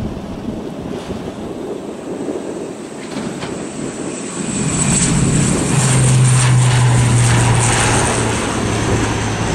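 ATR 72-600's twin turboprop engines at takeoff power through the takeoff run and liftoff. The propeller drone swells about halfway through, then holds as a steady low hum with a high whine on top.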